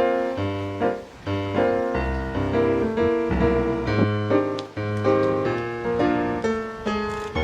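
Background piano music: a melody of steady notes over a bass line.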